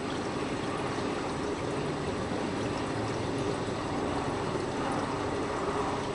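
Submersible aquarium power filter running, with water and air bubbling steadily from its venturi outlet over a steady low hum.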